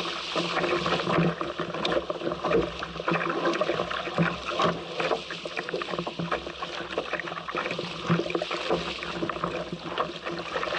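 Water rushing and splashing against the hull of a small sailing craft moving fast in strong wind, with irregular slaps of spray and wind noise throughout.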